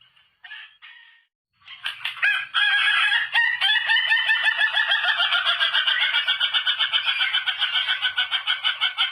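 Rooster's laughing crow: a few short calls, then, about a second and a half in, a long run of rapid staccato notes lasting about seven seconds, like drawn-out laughter.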